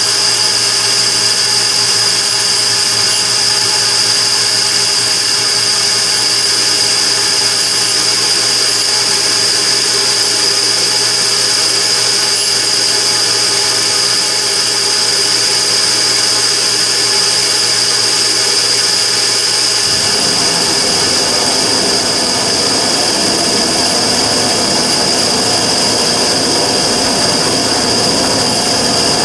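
Immersion-tube burner running with a steady loud noise and a high whine, the abnormal noise being recorded. About 20 seconds in, a rougher, lower rumble joins in.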